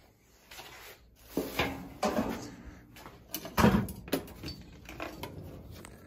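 A few knocks and clatters of objects being handled and set down, the loudest about three and a half seconds in.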